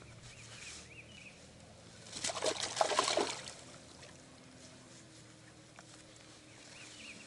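Water splashing and sloshing for about a second, starting about two seconds in, as a freshly caught tilapia is put into a keep net at the water's edge.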